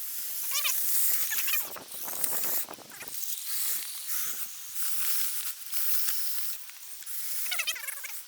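Electric motors and gears of radio-controlled trucks whining as they are driven and plowed through snow, the whine bending up and down in pitch with the throttle, over a steady hiss.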